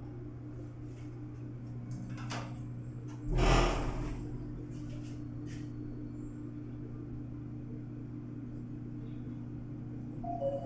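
Elevator car running with a steady low hum, and a single thud about three and a half seconds in.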